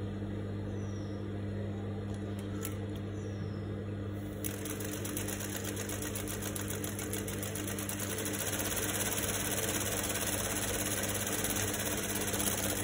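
Juki industrial straight-stitch sewing machine sewing a straight seam: the motor hums steadily, and about four seconds in the needle starts running in a fast, even stream of stitches that gets a little louder in the second half.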